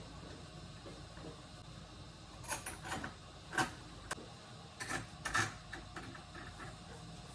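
Scattered sharp clicks and knocks of smart-lock hardware and screws being handled and fitted against a door, in two short clusters: one starting about two and a half seconds in, another around five seconds in.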